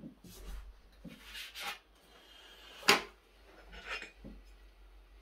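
A steel ruler and hand being worked over an MDF board: several short rubbing scrapes and one sharp knock about three seconds in.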